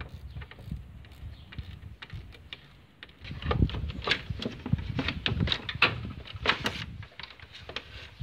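Black plastic radiator fan shroud being worked loose and shifted in the engine bay, knocking and rattling against surrounding parts. A few light knocks at first, then a busy run of knocks and rattles from about three seconds in, dying away near the end.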